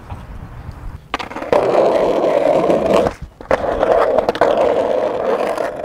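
Skateboard wheels rolling on a concrete sidewalk with a steady rumble, which drops out briefly a little past halfway and then picks up again. A few sharp clacks from the board sound along the way.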